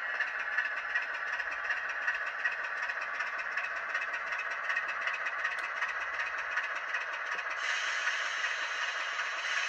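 N gauge Class 25 model locomotive's DCC sound decoder (ESU LokSound V5) playing a diesel engine recording through a tiny sugar-cube speaker: a thin, rattling engine note with little bass as the model runs slowly. About eight seconds in, as the model stops, a brighter hiss joins the engine sound.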